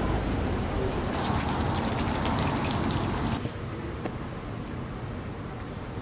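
Light rain pattering, heard as a steady hiss full of small ticks. About three and a half seconds in it cuts abruptly to a quieter hiss with a faint, high, steady whine.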